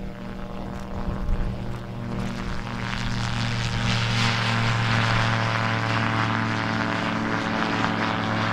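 AutoGyro Calidus autogyro's four-cylinder Rotax engine and pusher propeller running at takeoff power as the aircraft lifts off and climbs. It is a steady drone that grows louder about three seconds in and then holds.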